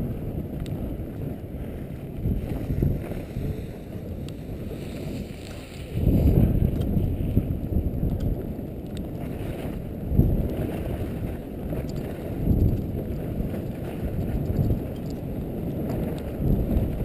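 Wind rushing over the microphone and skis sliding on packed snow during a downhill ski run. The low rumble swells in surges, the strongest about six seconds in and again about ten seconds in.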